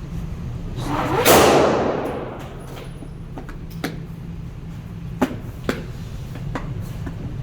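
A single loud bang about a second in that fades over roughly a second, followed by a few sharp knocks, over a steady low hum.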